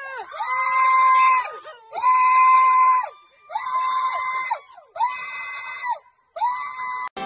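A person screaming over and over at a black bear: five long, high, steady-pitched screams, each about a second long with short breaks between them, growing quieter toward the end.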